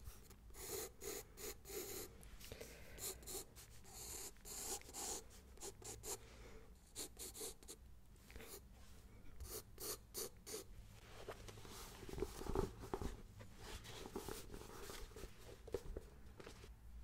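Pencil sketching on a spiral-bound sketchbook held close to the microphone: quick, irregular scratching strokes on paper, a few of them louder about twelve seconds in.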